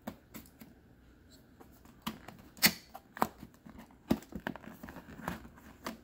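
Cardboard retail box of a Blue Yeti X microphone being handled and opened by hand: a run of uneven sharp scrapes, taps and crackles of card. The loudest comes about two and a half seconds in.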